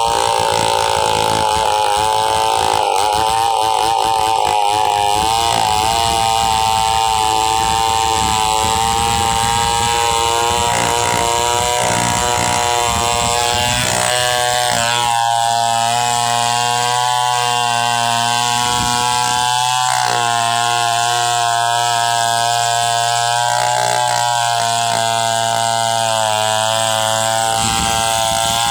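Chainsaw engine running continuously at high speed, its pitch wavering slightly as it works.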